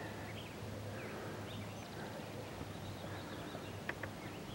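Faint outdoor ambience with scattered short bird chirps and calls, over a low steady hum.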